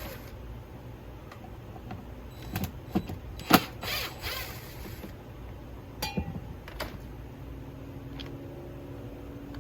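Scattered metallic clicks and knocks of hand tools and parts being handled on a chainsaw as its handle is taken off. The loudest knock comes about three and a half seconds in, and the knocks fall over a steady low background hum.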